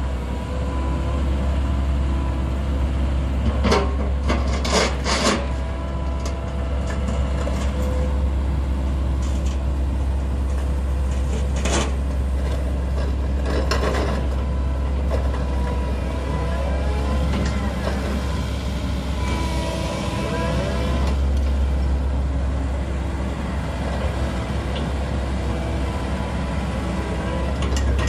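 Komatsu PC138US-10 hydraulic excavator running with its diesel engine under steady load while the boom, arm and bucket move and the upper structure swings. A hydraulic whine comes and goes, and sharp clanks from the attachment and linkage come about four to five seconds in and again around twelve to fourteen seconds in.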